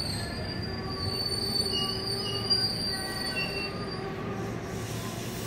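KRL Commuter Line electric commuter train braking to a stop at a platform, with a steady high-pitched squeal over a low rumble. The squeal cuts off about four seconds in as the train halts.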